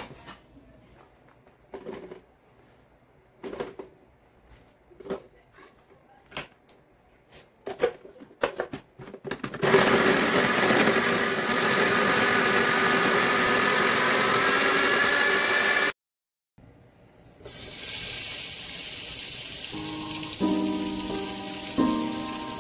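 A chef's knife chops lemongrass on a wooden cutting board in a run of sharp separate knocks. About ten seconds in, a Sunbeam mini food processor starts and runs steadily for about six seconds, mincing onion, garlic, ginger and lemongrass; this is the loudest sound. After a brief gap, sliced pork belly fat starts sizzling in a frying pan, with background music coming in near the end.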